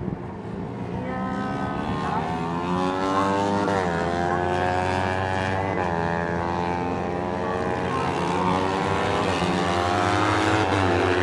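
Several J-GP3 racing motorcycles at full race pace, their engines overlapping at different pitches and rising and falling in pitch as the riders rev and shift. The sound grows steadily louder as the pack approaches.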